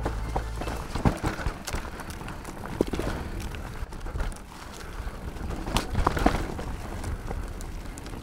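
Mountain bike riding down a rough, rocky trail: tyres crunching over loose stones and the bike rattling, with irregular sharp knocks as it hits rocks. The hardest hits come about a second in, near three seconds and around six seconds.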